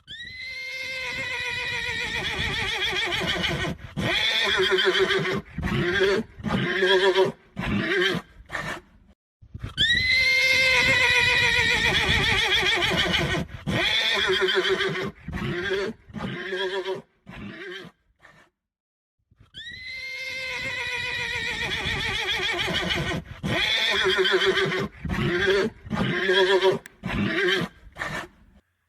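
Horse whinnying, the same neigh played three times in a row, about ten seconds apart. Each neigh opens with a long, high call and breaks into a string of short, choppy pulses.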